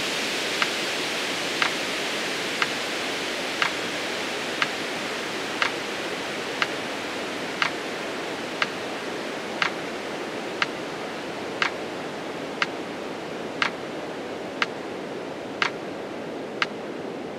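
Metronome clicking once a second, keeping the count, over a steady hiss that slowly grows fainter.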